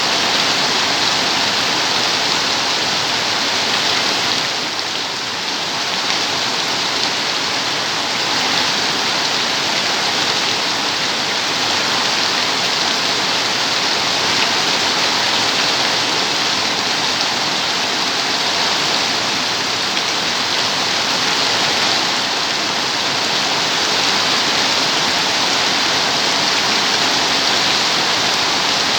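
Steady heavy rain, an even dense hiss of falling water.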